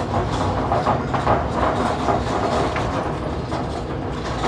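Continuous rattling and clattering of a metal camper frame and loose wooden bed boards as a person climbs up onto the platform and shifts their weight on it.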